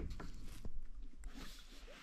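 Kayak paddling on a calm lake: water splashing and dripping from the paddle, with a short knock about two-thirds of a second in and a low wind rumble on the microphone.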